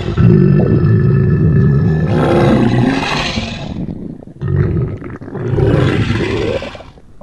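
Exaggerated cartoon stomach growl: two long, loud, low rumbling growls, the second starting about four and a half seconds in.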